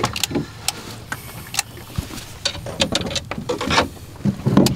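Irregular clicks and knocks from handling things aboard a small boat, with a louder cluster of knocks near the end.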